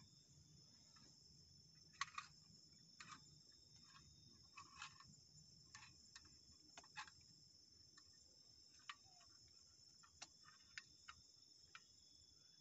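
Faint, steady high-pitched insect chorus of crickets or similar insects, with scattered soft clicks and taps at irregular moments, the sharpest about two seconds in.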